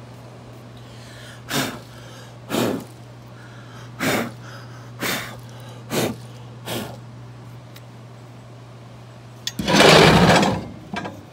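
A man blowing metal drill shavings off a steel plate in short, sharp puffs, six of them about a second apart, then a louder, longer rush of about a second near the end. A steady low hum runs underneath.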